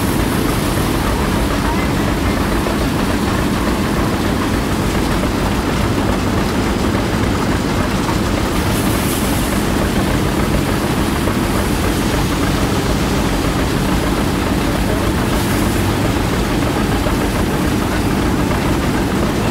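An engine running steadily, holding the same speed throughout, with a constant rushing noise over it.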